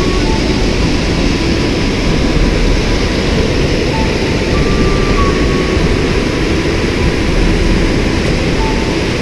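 Loud, steady rush of a waterfall and rapids: white water pouring over and between large rocks.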